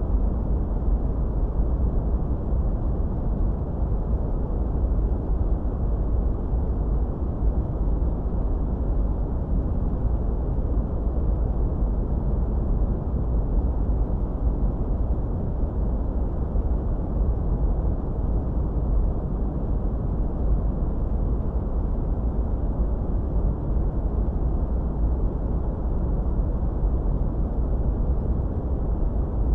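Steady, deep, rumbling noise from a relaxation noise track, its energy weighted toward the bass and dull in the treble. It holds even throughout, with no changes or separate events.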